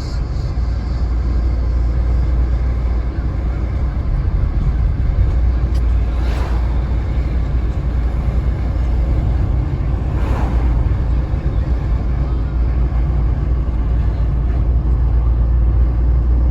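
Steady low rumble of a vehicle in motion, with two brief swells of noise about four seconds apart.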